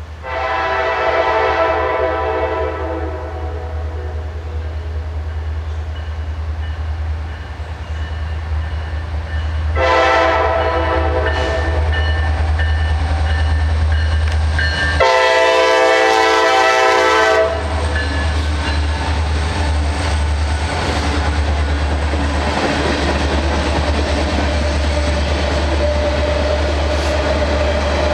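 Norfolk Southern freight train led by EMD SD60-series diesel locomotives sounding its multi-chime horn for a grade crossing: a long blast, a second one, and a third, louder one, over a steady low engine rumble. After the last blast the train rolls past with the rattle and clatter of freight cars on the rails.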